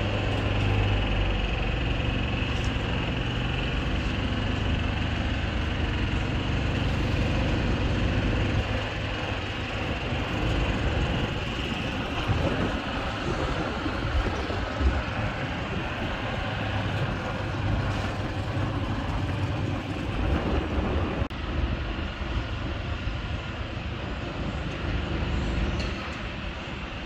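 A train running on the tracks: a steady rumble with a low hum and a faint high ring, easing a little after about eight seconds.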